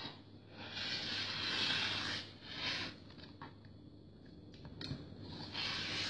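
Fabric and a clear quilting ruler rubbing and scraping on a cutting mat as the sewn piece is shifted and straightened, loudest for a couple of seconds at the start. Near the end a rotary cutter begins to run along the ruler's edge, trimming the fabric.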